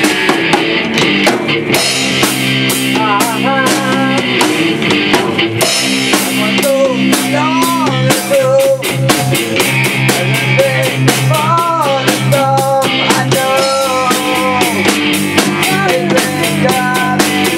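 Live rock band rehearsing: a Tama drum kit and electric guitars playing together. A melody line with bent, wavering notes enters about three seconds in, above the steady beat.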